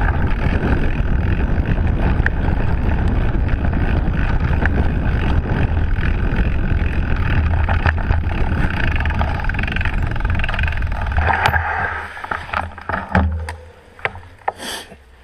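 Wind rushing over a bike-mounted camera and a wide knobby fat-bike tyre rolling fast over a dirt and leaf-covered trail. About twelve seconds in, the rush falls away as the bike slows to a stop, leaving a few clicks and knocks.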